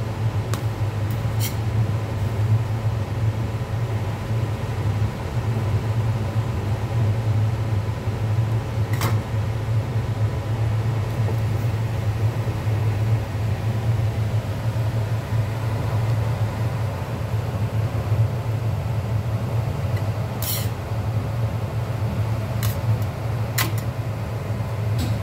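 Steady low hum of commercial kitchen machinery running beside a flat-top griddle, with a few brief sharp clicks, a couple early and several near the end.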